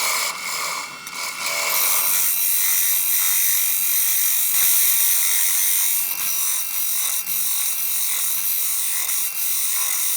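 Oak being worked on a spinning woodturning lathe: a steady high, hissing scrape with a few small clicks.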